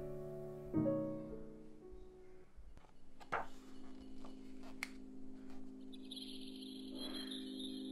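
Mellow lo-fi background music: soft piano chords that thin out, then a held low note with a high, chime-like shimmer coming in near the end. A few faint clicks and a brief rustle sound in the middle.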